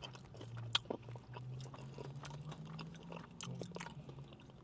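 Close-miked mouth sounds of a person chewing a forkful of cheesy mac and cheese with chicken: soft wet smacks and small clicks, one sharper click about a second in, over a low steady hum.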